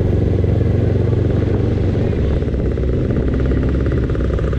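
Yamaha sport motorcycle's engine running at low speed in slow traffic among other motorcycles, heard from the rider's seat. A fast, even ticking joins about halfway through.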